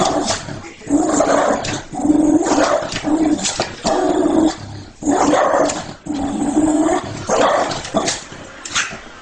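Small dog barking and growling excitedly, a run of about seven short calls, quieter near the end.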